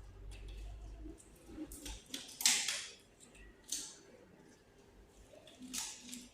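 A few short rustling, scraping handling noises in a small room, the loudest about two and a half seconds in, over a faint low rumble at the start.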